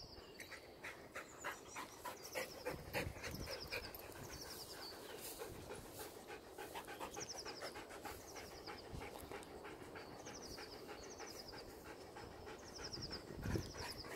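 A dog panting in quick, steady breaths. A bird repeats a short, high, falling call many times behind it.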